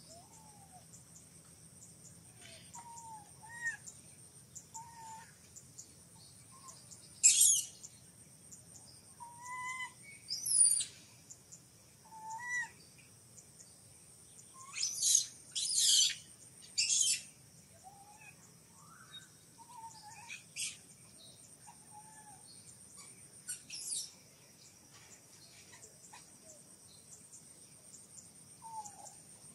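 Baby macaque giving short, squeaky whimpering calls that rise and fall, scattered through the stretch, with several louder shrill high calls in between. A steady high insect drone runs underneath.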